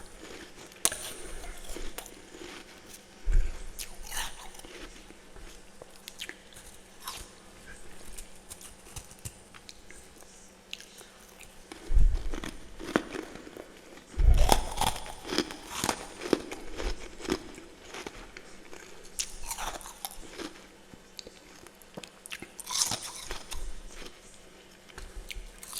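Close-up crunching and chewing of freezer frost and ice: irregular bites, the loudest a little after the middle, with softer crackling chews between.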